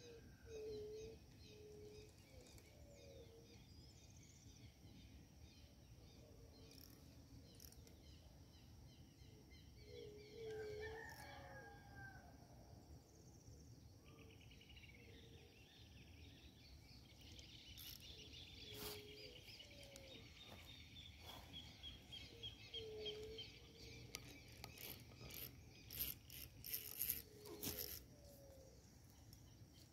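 Faint outdoor ambience with birds calling on and off and a rooster crowing about ten seconds in; a high pulsing trill runs through the middle, and a few sharp clicks come near the end.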